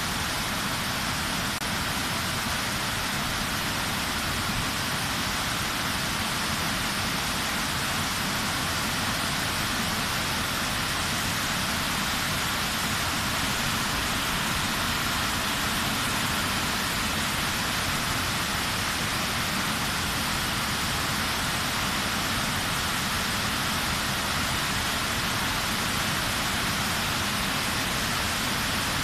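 Water rushing down a dam's concrete spillway through raised shutter gates, a flood release after heavy rain: a steady, even rush of falling and churning water that does not change.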